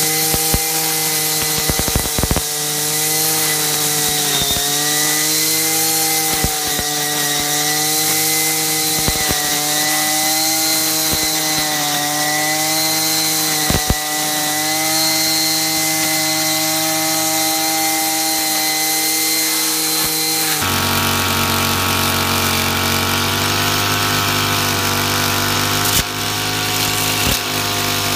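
Brush cutter with a four-wing nylon trimmer head running at high speed and cutting weeds. Its engine note dips briefly every couple of seconds as the head bites into the growth, with scattered sharp clicks from the head striking stems and debris. About twenty seconds in the sound changes abruptly to a different steady engine note.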